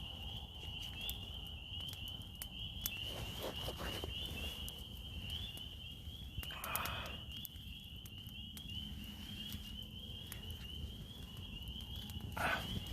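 A steady high-pitched chorus of small animals calling without a break, with faint crackling clicks and three short louder scuffing sounds: one a few seconds in, one near the middle and one near the end.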